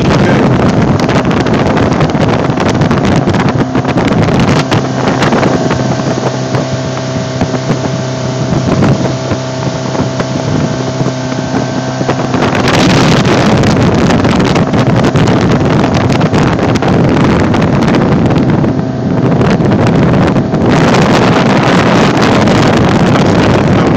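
Motorboat running steadily at speed, trimmed out on plane: a constant engine drone under heavy wind buffeting on the microphone and rushing water. The engine hum comes through most clearly between about five and twelve seconds in, when the wind eases.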